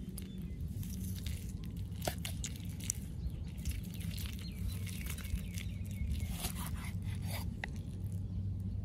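Large kitchen knife slicing through a slab of seasoned pork on a wooden chopping block, with scattered light clicks and scrapes as the blade meets the wood, over a steady low rumble.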